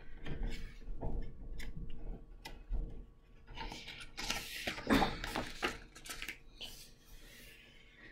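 Paper rustling and small clicks as the pages of a picture book are handled and a page is turned, with the loudest rustle about halfway through.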